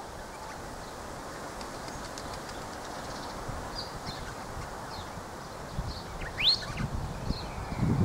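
Wind in pine branches, a steady rushing with low gusty buffeting in the last couple of seconds, under scattered short, high bird chirps, one of them a rising chirp a little past the middle.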